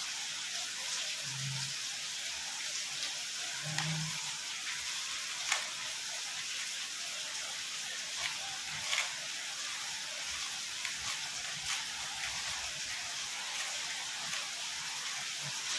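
A steady hiss, with a few faint clicks scattered through it.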